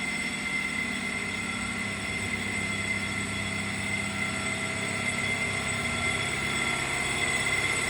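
Sawmill power unit running steadily: a constant mechanical hum with a steady high whine over it.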